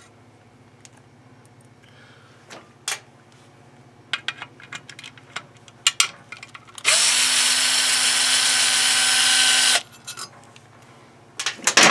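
Milwaukee cordless drill driver with a socket extension running steadily for about three seconds to back out a bolt on the coil-pack cover, then stopping abruptly. Light metallic clicks of the socket and bolt being handled come before it and again near the end.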